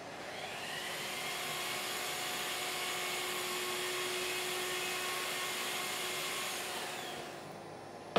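A workshop power tool's electric motor spinning up, running steadily for about six seconds, then winding down. A sharp click comes at the very end.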